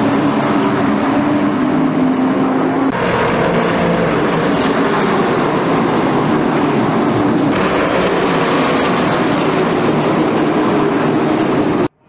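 Late model race cars' V8 engines running at speed in a pack on an oval track, a loud steady drone. The pitch shifts abruptly about three and seven and a half seconds in, and the sound cuts off suddenly just before the end.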